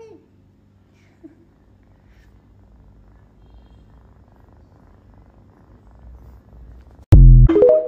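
Kitten purring softly while being stroked, with a short mew about a second in. Near the end, a sudden loud low electronic tone cuts in over it.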